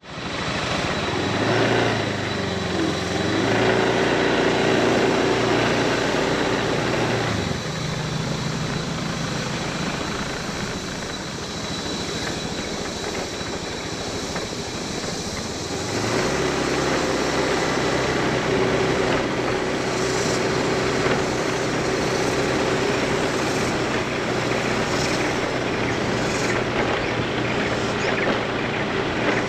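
Motorbike engine running under way with wind noise. The engine note picks up about a second and a half in, falls away for a stretch about a quarter of the way through as if coasting, then comes back with a rising pitch about halfway.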